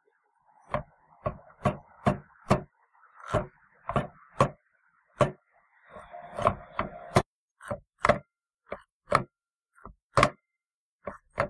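Miter saw's universal motor armature being twisted back and forth by hand: a run of irregular sharp clicks and knocks with a faint rasp between them in the first half. The armature will not turn freely because its gear mechanism is badly damaged.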